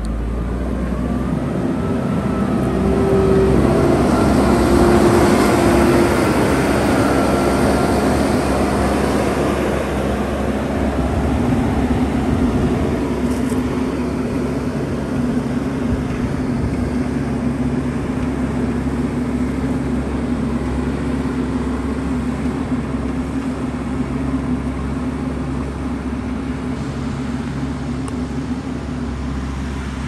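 JCB backhoe loader's diesel engine running under load as the machine drives and grades a rough dirt road. It is louder over the first ten seconds, with a whine rising in pitch, then settles to a steady drone.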